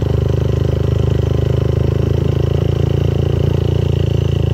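Motorcycle engine running steadily at cruising speed while riding, a low drone with a fast even pulse.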